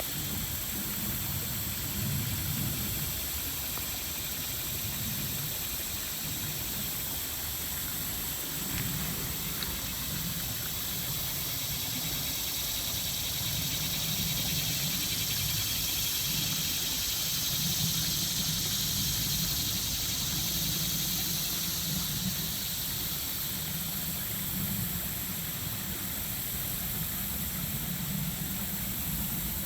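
Steady outdoor background: a low, wavering rumble under an even high hiss, with no distinct events.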